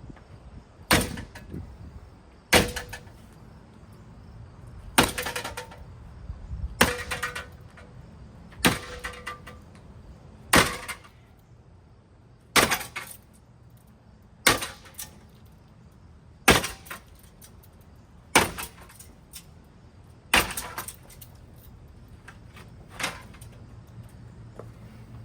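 A hugger ceiling fan being struck hard with a bat, about twelve blows roughly two seconds apart. Several blows leave a brief ringing tone.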